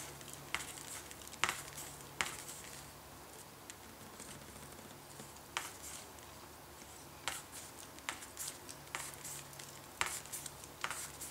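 Small cutting pliers snipping at the end of a thin RG 195 coaxial cable, cutting back the braided shield: faint, irregular sharp clicks, about ten of them, over a low steady hum.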